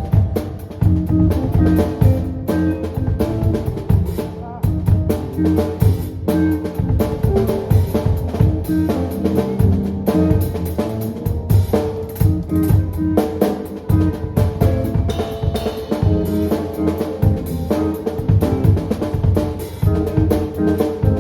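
A band playing a song live, with a drum kit beating out a steady rhythm under sustained bass and other instruments.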